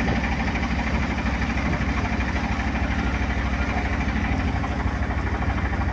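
A boat's inboard engine running steadily, a low drone heard from on board, over a constant hiss.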